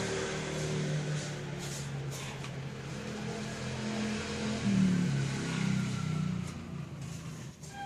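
A motor vehicle engine running, its pitch shifting up and down, with a few light clicks.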